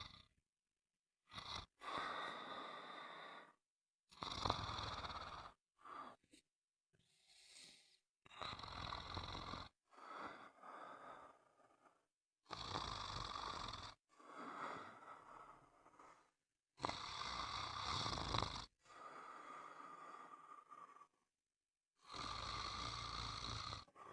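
Snoring: a string of about a dozen snores, each lasting one to two seconds, with short silent gaps between them.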